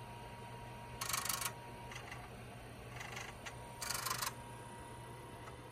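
Radio Shack floppy disk drives on a TRS-80 Model I chattering while files are copied. Bursts of rapid head-stepping buzz come about a second in and again about four seconds in, with shorter bursts between, over a steady low hum.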